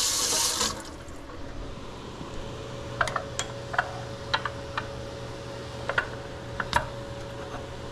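Kitchen tap running, shut off within the first second; then scattered light clicks and taps of kitchen handling over a steady low hum.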